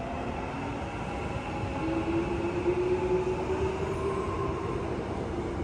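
Gyeonggang Line 371000-series electric train pulling away, its traction motors whining in several tones that slowly rise in pitch over a steady rumble.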